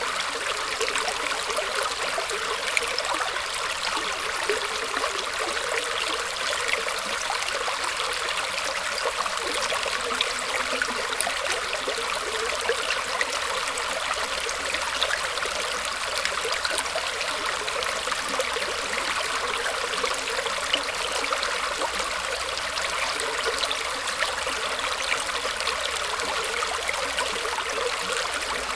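Shallow stream of water flowing and trickling over roots, a steady babble with many small splashes and gurgles.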